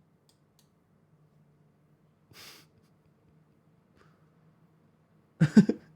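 A house cat sneezes once, a short sharp hissy sneeze about two seconds in, during a fit of repeated sneezing. Near the end comes a brief, louder voiced sound in a few quick pulses, over a faint steady low hum.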